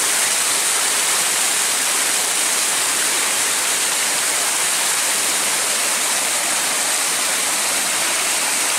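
Steady rush of water pouring over a low concrete weir, an even hiss with no breaks.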